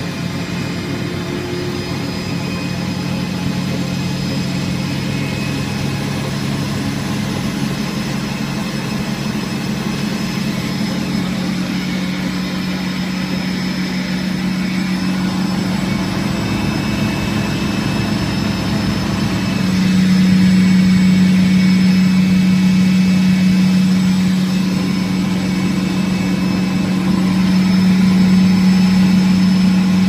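Hoover Spinarinse 3012A spin dryer's motor and drum running at spin: a steady motor hum whose pitch creeps up a little as it runs, growing louder about two-thirds of the way in.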